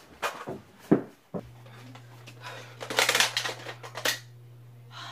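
Toy Nerf blaster being worked: scattered sharp plastic clicks and clacks, bunched together about three seconds in. Under them a low steady hum starts about a second in.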